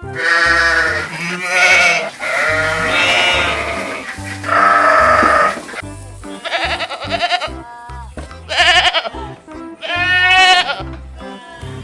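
Goat- or sheep-type bleating: a run of about seven or eight loud calls, several with a wavering quaver, over background music with a repeating bass line.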